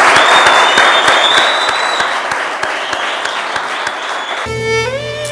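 Studio audience applauding, loud at first and then thinning out. About four and a half seconds in, instrumental music comes in over the last of the clapping.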